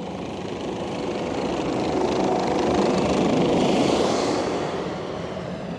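Takeuchi TL12V2 compact track loader running on high-flow hydraulics with its Conatex rotary soil-conditioner attachment spinning and grinding over the ground, a steady mechanical din that grows louder to a peak about three to four seconds in, then eases.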